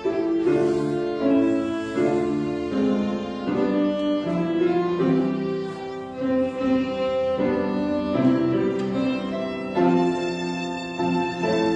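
Violin with piano accompaniment playing a slow piece, the bowed violin melody moving in held notes of about half a second to a second over sustained chords.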